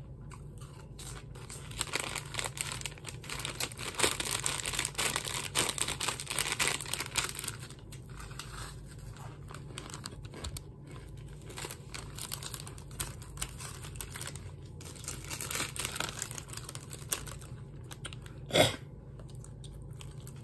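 Crinkling and rustling of a Doritos chip bag being handled and shaken, densest in the first half, with crunching of tortilla chips being eaten. One loud, sharp snap near the end.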